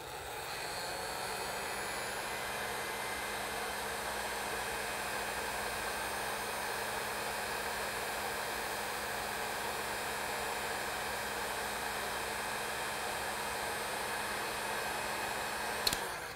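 Handheld electric heat gun running steadily, a fan rush with a low motor hum underneath, shrinking heat-shrink tubing over crimped wire splices. It spins up in the first second and switches off with a click near the end.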